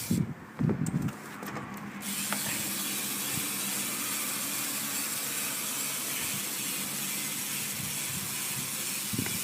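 Eclat Dynamic cassette hub in a BMX rear wheel freewheeling, its ratchet giving a fast, steady buzz that starts about two seconds in and holds even, decently loud. A few low knocks come first as the bike is handled.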